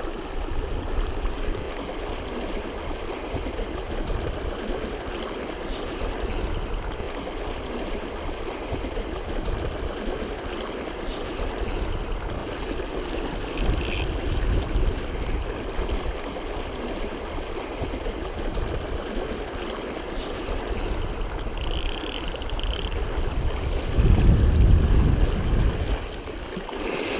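Shallow river current rushing and gurgling close by, with a low rumble of water and wind on the microphone. Near the end the low rumble grows louder for a couple of seconds as the water surges around someone wading.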